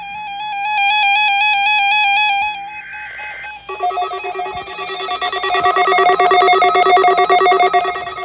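NOAA weather radio receivers sounding their electronic alert tones: a fast warbling beep, a short buzzing burst about three seconds in, then a steady alarm tone with rapid trilling beeps layered over it. This is the National Weather Service's weekly test of the warning alarm tone.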